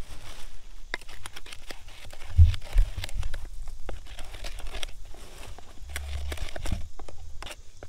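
Large clear plastic food bag crinkling and rustling as it is handled, with popcorn shifting inside. A few dull bumps come through, the loudest about two and a half seconds in.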